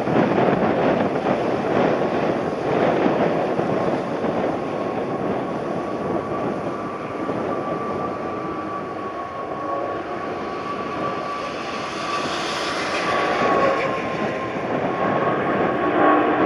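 Airliner engines passing low over the airfield: a steady, loud rush of engine noise with a high whine held throughout.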